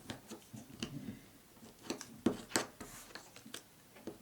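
Cardstock strips being pressed together and handled on a table: scattered faint paper rustles and small taps, with two sharper clicks a little past the middle.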